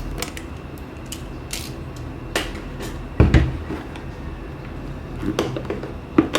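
A screwdriver's carrying case being handled: scattered clicks and knocks, with a heavier thump about three seconds in.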